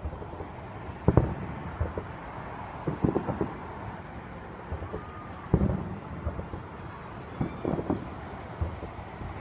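Distant fireworks booming: irregular deep thumps, some coming in quick clusters of two or three, over steady road-traffic noise.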